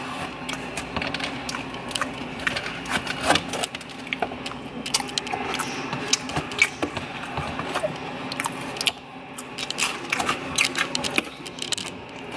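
Close, irregular clicks, taps and rustles of food being handled and chewed at an open refrigerator, over a steady low hum.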